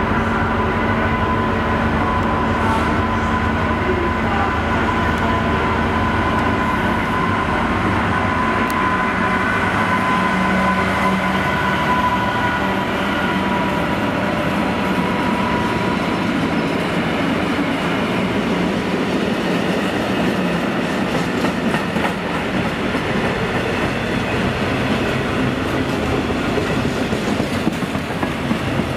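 Class 66 diesel-electric locomotive's two-stroke V12 diesel engine running as it hauls a freight train through the station. The engine note fades after about halfway as the loco passes, leaving the covered freight wagons rolling by with a steady clatter of wheels on the rails.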